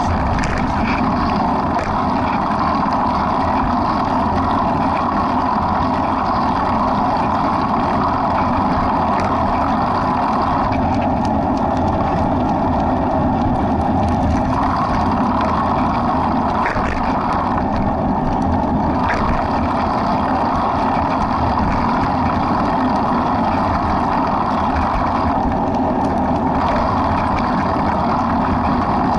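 Steady rushing noise of wind and movement on a running runner's action-camera microphone, its upper hiss dropping away briefly a few times.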